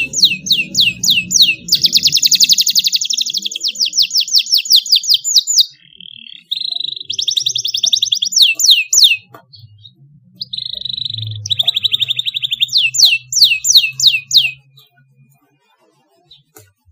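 Domestic canary singing: rapid rolling trills and quick repeated sweeping notes, in three phrases with short breaks, falling silent about two seconds before the end.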